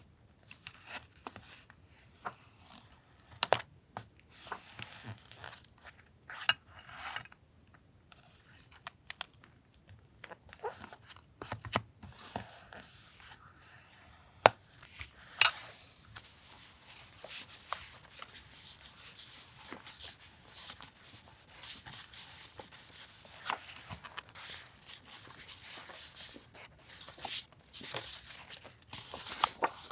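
Paper collage work: paper and stickers being handled and torn, with sharp clicks scattered throughout. The rustling grows denser about halfway through.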